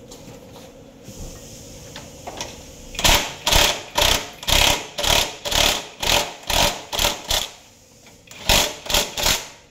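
Cordless impact wrench driving a bolt in short, repeated trigger pulls, about two a second, with a brief pause before three final pulls near the end.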